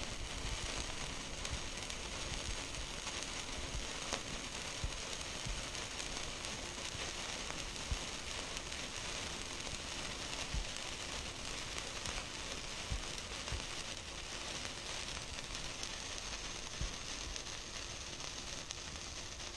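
Two indoor sparkler sticks fizzing steadily as they burn, with scattered sharp crackles.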